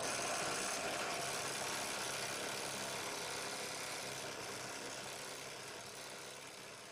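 Drill press running a quarter-inch side-cutting (roto-zip) bit that is routing a ragged slot sideways through a rocket body tube. The sound is steady and slowly fades.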